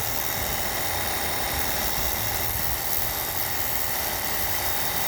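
Cordless pressure washer running, its battery-driven pump humming steadily under the hiss of the water jet.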